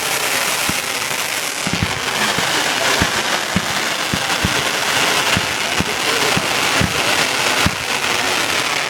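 Fireworks going off: a continuous dense crackle with sharp bangs about twice a second.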